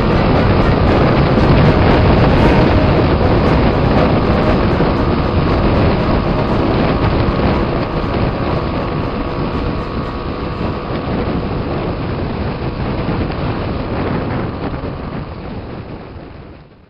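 Kawasaki D-Tracker X's single-cylinder engine running under way, with heavy wind rushing over the microphone. It fades out near the end.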